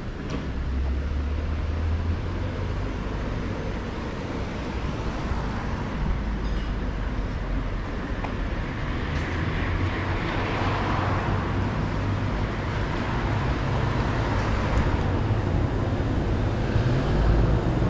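City street traffic: a steady low rumble of car engines and tyres, swelling louder around the middle as vehicles pass and growing louder again near the end.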